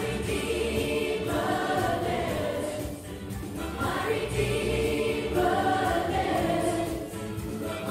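Children's school choir singing a Christian worship song in held, phrased lines, heard live from a few rows back in the audience of a hall.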